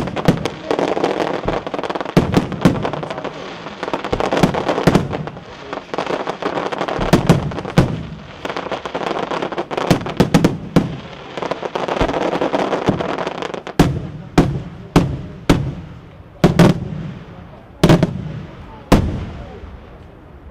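Daytime fireworks display: aerial shells bursting in rapid succession over dense crackling. In the second half it thins out to separate sharp bangs, about one a second.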